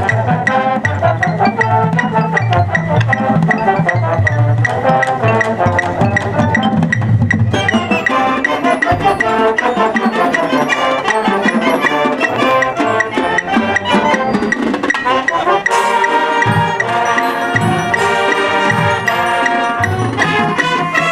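Marching band playing its competition show music: brass ensemble with percussion, including mallet and wood-block strikes, at full volume.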